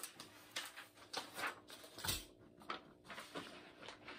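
Faint handling noise: soft rustles and scattered light clicks, with one sharper knock about two seconds in.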